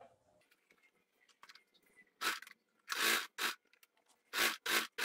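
Quilted, padded fabric crinkling and rustling as it is handled and turned over. It comes in a series of short, loud bursts starting about two seconds in, after faint small clicks.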